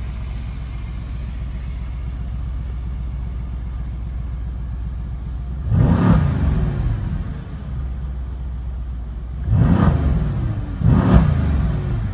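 Mercedes-AMG C63 S's 4.0-litre twin-turbo V8 idling steadily in park, then revved: one blip to about 4,000 rpm some six seconds in, and two more in quick succession near the end. Heard from the driver's seat with Sport+ mode selected.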